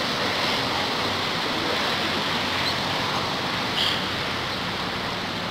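Steady outdoor rushing noise, with a brief high chirp about four seconds in.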